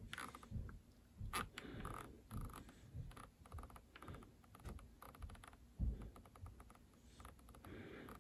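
Spektrum NX8 radio transmitter's scroll roller clicking as it is thumbed through a long menu list: a run of faint, irregular clicks.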